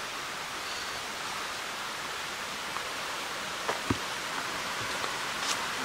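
Shallow woodland creek running over stones: a steady rushing hiss, with a couple of soft knocks a little under four seconds in.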